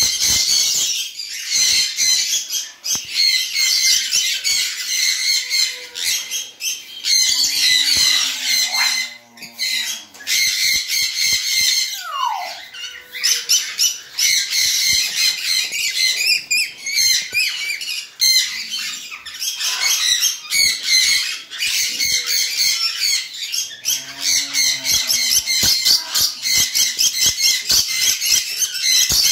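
Lories screeching and chattering almost without a break in shrill, high calls, with a few lower calls and one falling whistle near the middle.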